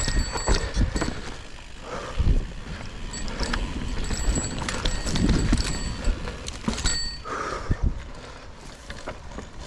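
Mountain bike being ridden on a dirt trail: the bike rattles and clicks irregularly over the ground, with a few low rumbling surges.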